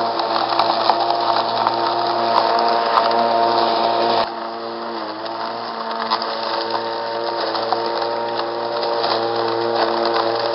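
Mow Joe MJ401E corded electric lawnmower running while cutting grass and dry leaves: a steady motor whine over a crackle of clippings and leaves against the blade. The sound gets quieter abruptly about four seconds in, and the motor's pitch dips briefly a second later before recovering.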